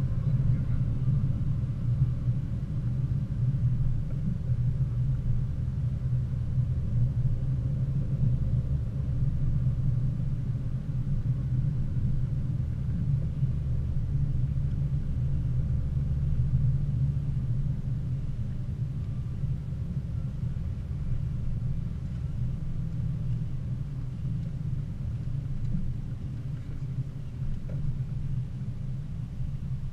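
Low, steady rumble of a Mercedes ML350 4matic driving, heard from inside the cabin: engine and road noise, growing a little quieter toward the end.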